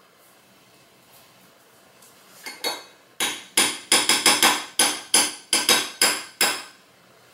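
A metal spoon tapping repeatedly against a glass measuring cup, knocking peanut butter off the spoon: a quick run of about fifteen ringing taps, roughly four a second, starting about two and a half seconds in.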